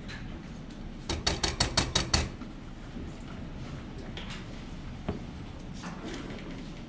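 A spatula rapping quickly on the rim of a steel saucepan, about eight sharp metallic clacks within a second, about a second in, with one lighter knock a few seconds later.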